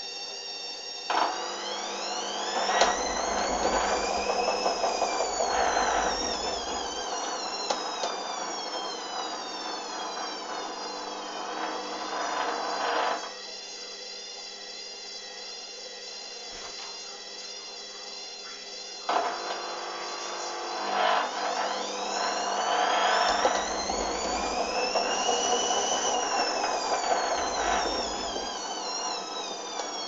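Hoover front-loading washing machine in its main wash: the drum motor whines up in pitch and slowly back down as the drum turns the suds-laden load, with low sloshing underneath. This happens twice, the first turn stopping sharply, with a pause of several seconds between, and a steady low hum runs throughout.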